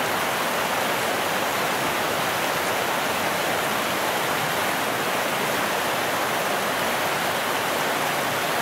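Steady rush of a trout stream's flowing water.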